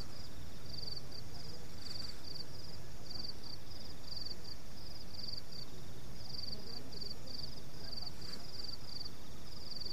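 Crickets chirping: short, high pulsed chirps repeating about two to three times a second, over a steady low rumble.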